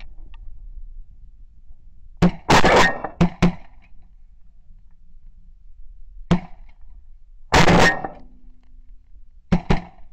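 Shotgun shots fired at passing geese, in bunches: a quick string of about four some two seconds in, a single shot near the middle, a louder one about seven and a half seconds in, and two close together near the end.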